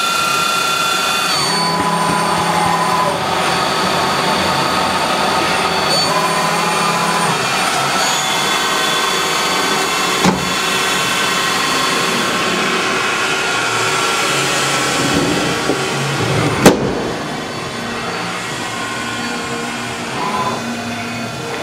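Cubic Diamond 32B CNC Swiss-type lathe's main spindle running under a machining job, a steady mechanical whine made of several tones that shift in pitch every few seconds. A light click comes about halfway through, and a sharp knock about three-quarters through, after which it runs a little quieter.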